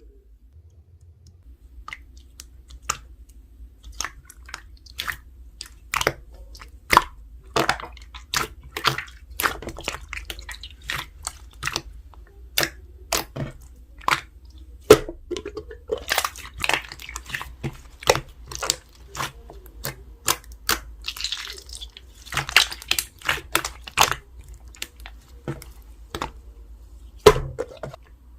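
Slime being squished and stretched by hand, giving a string of irregular sticky pops and clicks.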